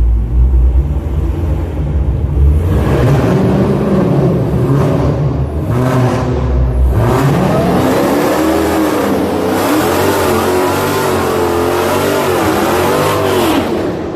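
Dodge Challenger Hellcat's supercharged 6.2-litre V8 rumbling at idle. After about three seconds it is revved again and again, its pitch rising and falling, until it cuts off suddenly near the end.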